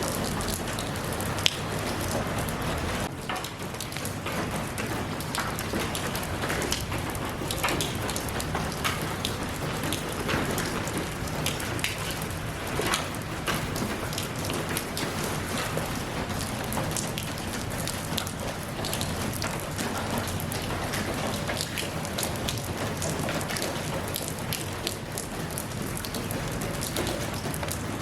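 Steady rain falling, with many separate drops striking a surface through the constant hiss, one sharper drop about a second and a half in.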